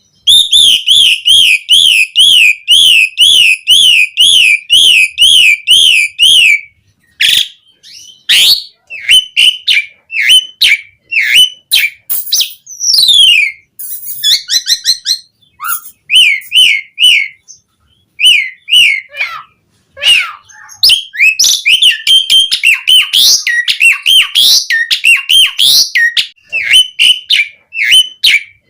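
Pied starling (jalak suren) singing: a long, rapidly wavering whistled trill for about six seconds, then a varied run of short whistles, chirps and rasping notes broken by brief pauses.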